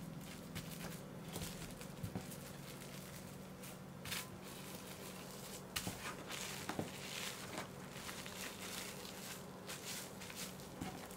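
Plastic cling wrap crinkling and rustling as hands fold it around a block of dough and press it flat on a wooden cutting board, in faint scattered crackles with a few louder patches of rustling.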